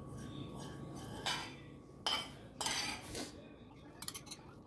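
A metal spoon scraping spice mix out of a small pan onto sliced green apples in a ceramic bowl: a few short scrapes, then light clinks of the spoon against the bowl near the end.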